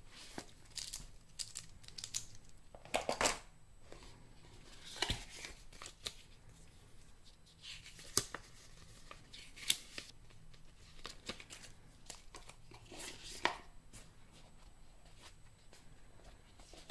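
Paper and plastic packaging handled by hand: irregular rustling and crinkling, with a few louder crackles spread through.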